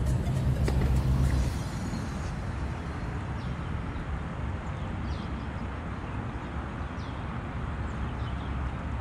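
Steady low rumble of distant road traffic, with faint short high chirps every second or two. A louder low sound drops away about a second and a half in.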